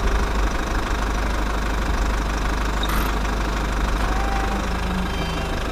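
Tractor engine idling steadily, a continuous low rumble with no change in speed.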